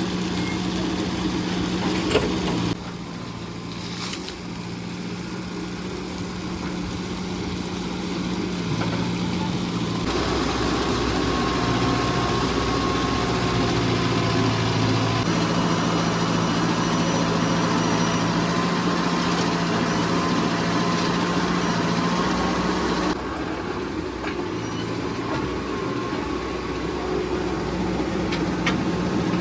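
Diesel engine of a Mahindra backhoe loader running steadily. Its level and note shift abruptly a few times.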